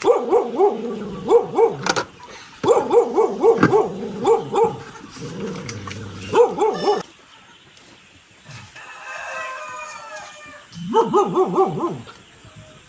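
Animal calls in loud bursts: runs of short yelping calls, several a second, broken by pauses. A longer, smoother call like a rooster's crow comes about two-thirds of the way through.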